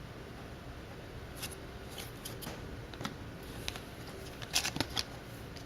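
Trading cards being handled: scattered short rustles and clicks as cards are slid and shuffled, a few louder ones near the end.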